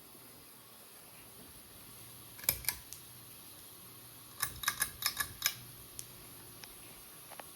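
Sharp clicks and taps, two about two and a half seconds in, then a quick run of about seven a couple of seconds later, over the faint steady hum of a Hunter Oakhurst ceiling fan running.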